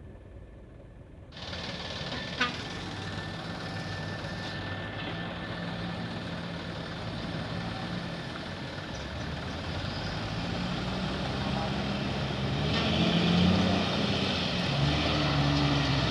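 Diesel truck engines running under load, growing louder as the trucks draw near, with the sound jumping up about a second and a half in.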